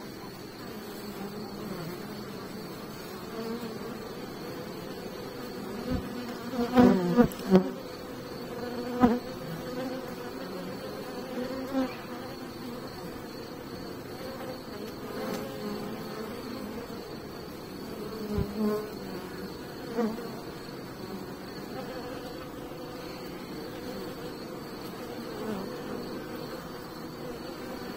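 Honey bees buzzing at a hive entrance: a continuous hum of many bees with wavering pitch. Single bees flying close by make louder buzzes about seven to nine seconds in and again near twenty seconds.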